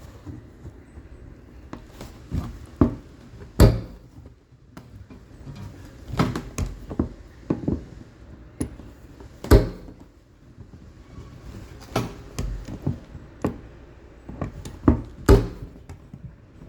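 Vice grips clamping and crushing the rusted embedded sending-unit lock ring on a plastic fuel tank: irregular clicks and knocks, with a few sharp cracks standing out.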